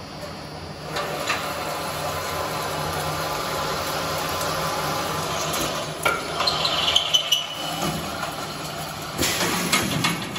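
Horizontal double-end tapping machine running while threading a steel rebar coupler: a steady motor hum with the noise of the taps cutting, growing louder about a second in. Sharp metallic clinks and clatters come in bursts about six seconds in and again near the end.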